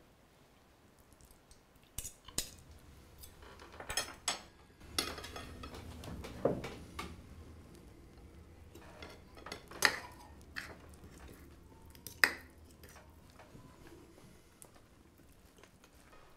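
Cutlery clinking against plates during a meal: about a dozen separate, sharp clinks scattered irregularly, starting about two seconds in and thinning out after about twelve seconds.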